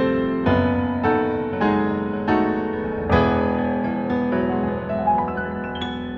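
Slow, gentle piano music: chords struck about every half second, then a rising run of single notes near the end.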